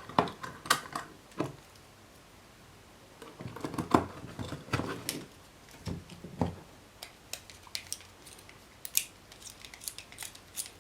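Small metal parts clicking and tapping as a motorcycle's ignition contact-point assembly is handled and fitted back into place by hand. There are scattered sharp clicks and knocks, with a run of lighter quick ticks in the second half.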